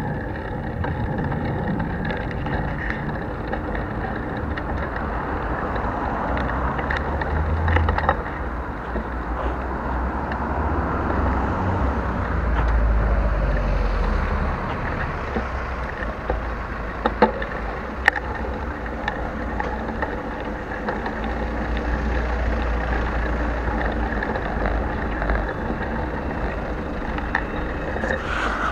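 Riding noise of a bicycle on city streets, picked up by an action camera on the handlebars with no protective housing. Wind buffets the bare microphone in low gusts over a steady rolling rumble, with a couple of sharp knocks about two-thirds of the way through.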